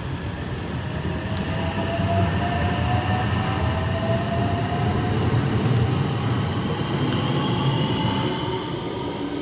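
JR West 225 series electric train pulling out and accelerating: the inverter-driven traction motors give a whine that rises slowly in pitch over the rumble of the wheels on the rails, with a few sharp clicks from the running gear.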